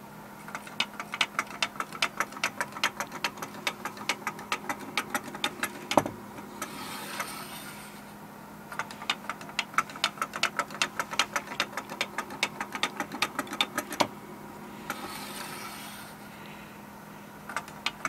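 Wooden hopping kangaroo toy walking down a sloped board track, its legs clacking on the wood in a quick run of clicks, several a second. It makes two runs, each ending in a single louder knock, about a third of the way through and again about three quarters through.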